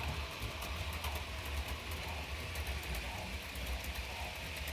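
Model freight train of coal hopper cars rolling along the track, a steady low rumble with light rapid clicking of the wheels over the rail joints.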